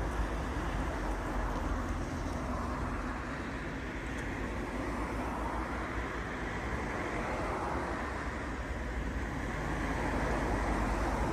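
Steady road noise of a car being driven: a low rumble of engine and tyres.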